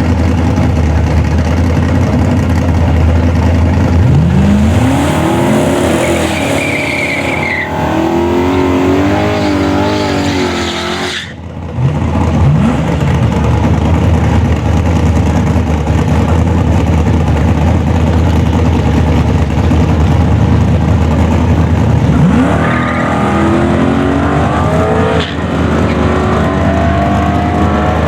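Holden VP Commodore accelerating hard at full throttle, its engine note rising in pitch and stepping through automatic gear changes over a heavy steady rumble. There are two such pulls, one early and one about two-thirds of the way through.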